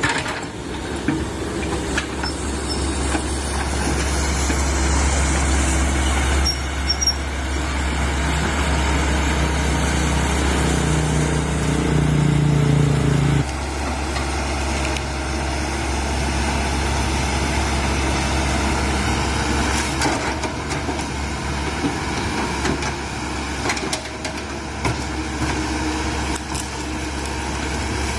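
Komatsu PC130 hydraulic excavator working, its diesel engine running steadily. The engine strains harder under load from about ten seconds in, then drops back suddenly a few seconds later, with occasional knocks.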